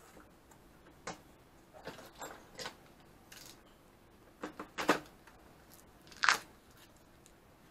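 Plastic shrink wrap on a hard case being slit and pulled open with a utility knife: short, scattered crinkles and clicks, the loudest a little past the middle and another about two-thirds in.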